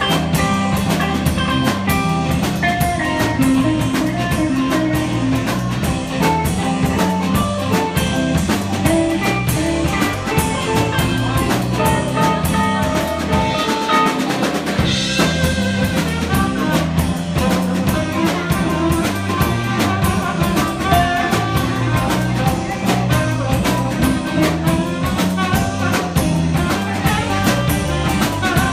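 Live band playing a blues-based rock and roll number: saxophone with electric guitars, electric bass and a drum kit keeping a steady beat.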